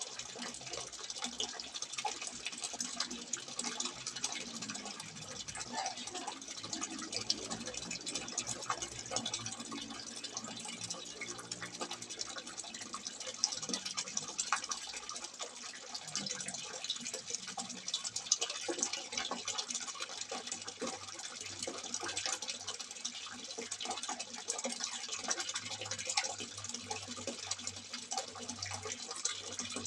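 Water pouring steadily from a simple spout and splashing, with a continuous patter of small splashes and drops.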